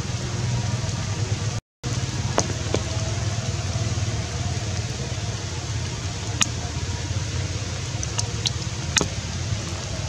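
Steady outdoor background noise with a low hum, broken by a few sharp clicks. The sound cuts out for an instant a little before two seconds in.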